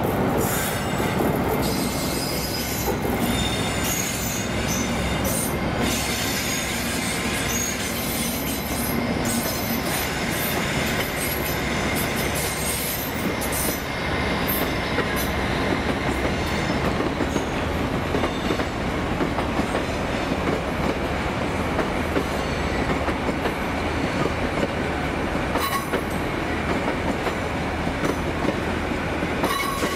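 A High Speed Train with Class 43 diesel power cars runs out over curved pointwork, its engines humming steadily. Its wheels squeal on the curves and clack over the rail joints.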